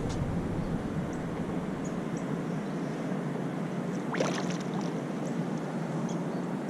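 Steady noise of river water around a small kayak, with a brief cluster of clicks about four seconds in.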